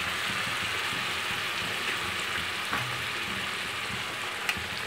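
Hot oil sizzling steadily under freshly added mustard paste and ground onion paste frying in a kadhai, an even hiss like light rain.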